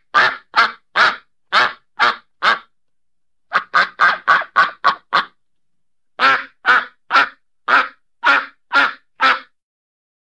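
Duck quacking in three runs of repeated quacks, roughly seven to ten quacks each. The middle run comes faster. Short silent gaps separate the runs.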